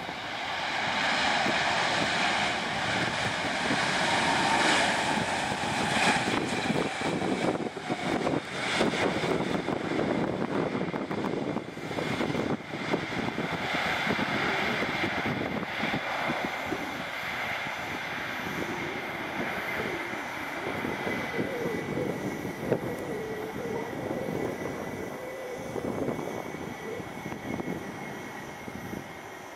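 Airbus A319 airliner with IAE V2500 turbofans landing and rolling out on the runway: the jet noise swells about a second in and stays loud, then eases as the aircraft slows, with a high fan whine drifting slowly lower in pitch.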